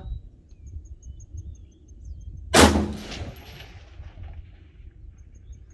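A single shot from a 5.56 mm M16A2 rifle, about two and a half seconds in: a sharp crack followed by an echo that dies away over about two seconds.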